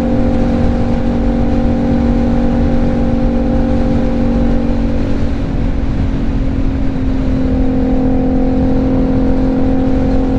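Heavy wind buffeting on a helmet-mounted mic at highway speed, over the steady drone of the BMW G310GS's single-cylinder engine. The engine note shifts slightly about seven seconds in.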